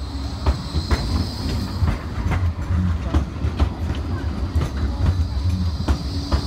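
A Bombardier Flexity 2 tram passes close by. It makes a steady low rumble, with its wheels clicking over the track about twice a second and a faint high wheel squeal near the start and again near the end.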